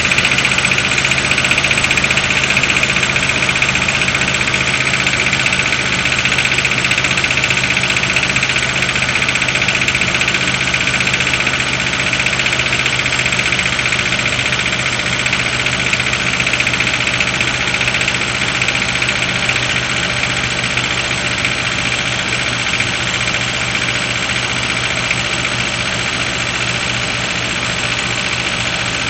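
1993 Suzuki Escudo's G16A 1.6-litre 16-valve four-cylinder engine idling cold with a knock, which the owner takes, not certainly, for a knock in the cylinder head. The overall level eases down slightly.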